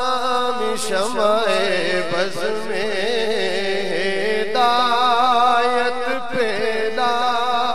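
A man chanting a salam, an Urdu devotional poem of greeting to the Prophet, unaccompanied, in long held notes with wavering ornaments.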